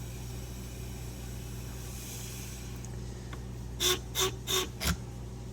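Scissor-sharpening machine's electric motor running with a steady low hum. About four seconds in come four quick, sharp sounds in a row.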